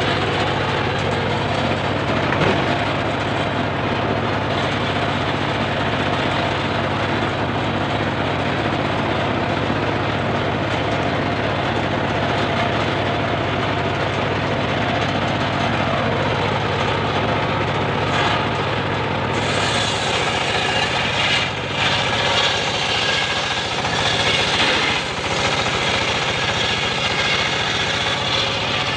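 Homemade engine-driven circular sawmill running steadily, its blade spinning free without cutting. A brighter hiss joins about two-thirds of the way through.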